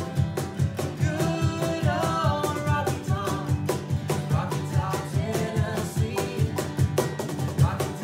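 Bluegrass band playing acoustic guitars, banjo and fiddle, with a voice singing the melody over a steady strummed beat.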